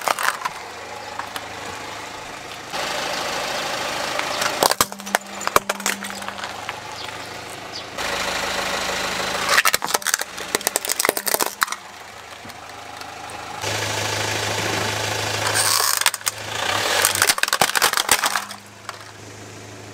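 Plastic toy vehicles cracking and crunching under a slowly rolling car tyre, over the steady hum of the car's engine running. It comes in several short cut-together clips, with dense bursts of snapping plastic three or four times.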